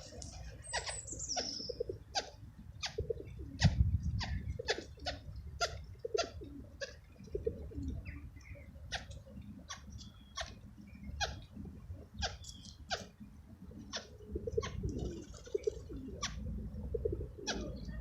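Pigeons cooing low while many sharp, irregular taps, about two a second, sound among them; the cooing is a male courting a hen. A brief high chirp near the start.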